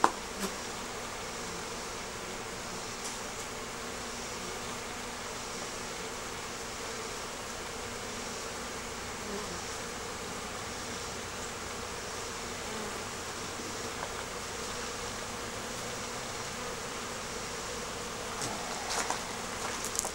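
Honeybees buzzing steadily in flight around the hive entrances, a low even hum with no break.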